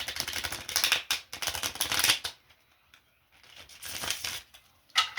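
Tarot cards being shuffled by hand: a rapid flutter of cards for about two seconds, then a softer rustle of cards and a sharp snap near the end.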